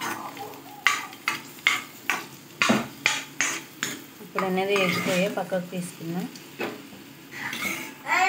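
Steel ladle knocking and scraping against a metal pan, a string of sharp clinks, while cashews and raisins fry in ghee with a faint sizzle. A voice is heard briefly about halfway through.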